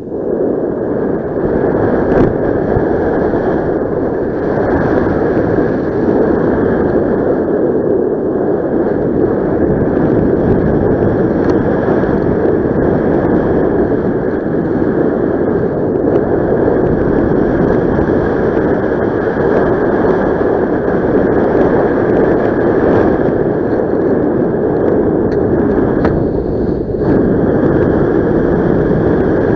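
Steady rush of wind on the microphone from a paraglider in flight, easing briefly near the end.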